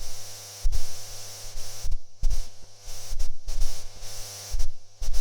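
Irregular low thuds, several within a few seconds, over a steady electrical hum and hiss.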